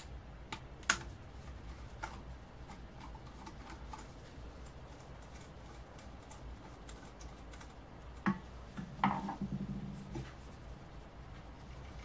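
Light clicks and taps of a screwdriver and small metal parts being worked on a small piston compressor, with a sharp click about a second in and a short clatter of knocks around eight to nine seconds in.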